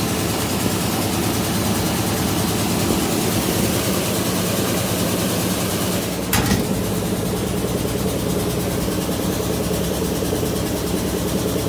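Top-loading washing machine on its spin cycle: the drum spinning with a steady motor hum and whir. A single sharp click or knock sounds about six seconds in.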